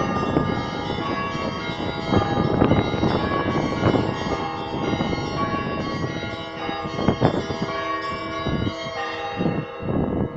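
Church bells ringing a peal: many bells struck in quick succession, their tones overlapping and ringing on.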